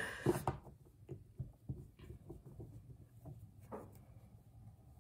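Soft rustles and small light taps of tarot cards being handled on a tabletop, with one slightly louder tap about three-quarters of the way through.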